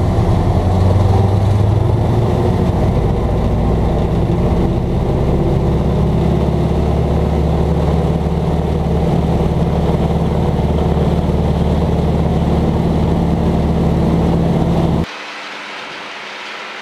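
CAC Winjeel's Pratt & Whitney R-985 Wasp Junior radial engine running steadily at full takeoff power during the takeoff roll. Near the end the sound drops abruptly to a quieter, thinner engine noise.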